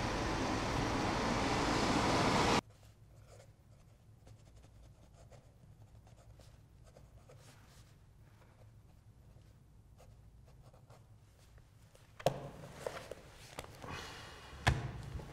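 Steady rain heard from inside a car, cut off suddenly. Then a ballpoint pen scratches faintly on paper, and a few sharp knocks and rustles follow as a book is handled on a table, the loudest knock near the end.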